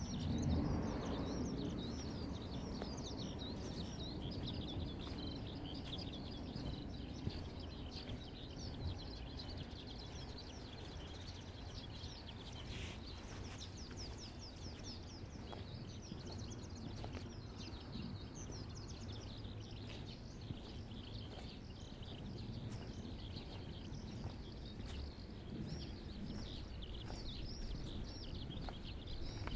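A dense, continuous chorus of short, high chirping calls, many overlapping, over a steady low background hum. A low rumble swells and fades in the first couple of seconds.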